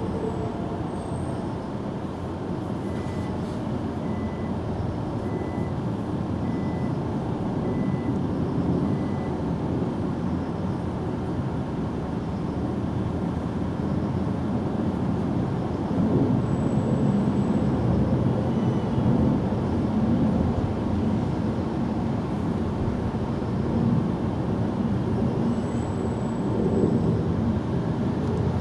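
Steady low mechanical rumble, like an engine running, with a faint run of six short, evenly spaced beeps about a second apart in the first third.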